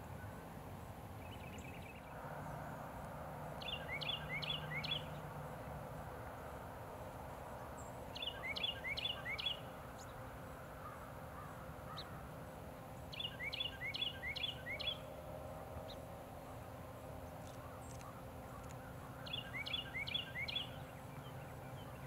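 A small bird singing four times, each phrase a quick run of four or five whistled notes that slide down in pitch, over a steady low background hum.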